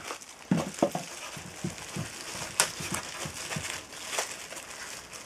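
Polystyrene foam packing scraping and squeaking in irregular short strokes as a drill chuck is worked loose from its fitted foam block, with crinkling packaging and a sharp click about two and a half seconds in.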